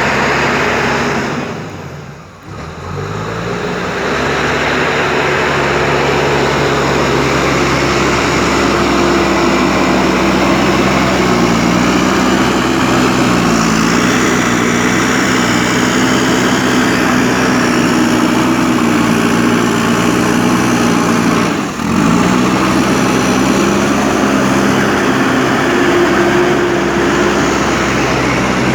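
JCB 3DX Super backhoe loader's diesel engine running under varying load, its note shifting up and down as the machine works. The sound drops away briefly about two seconds in and climbs back, with another short dip about three quarters of the way through.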